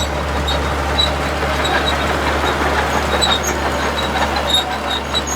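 Heavy diesel vehicle running steadily with a low drone, with scattered high squeaks and metallic rattles.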